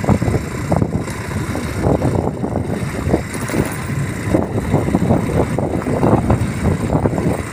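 Loud, gusty rumble of wind buffeting the microphone, fluttering rapidly and unevenly throughout.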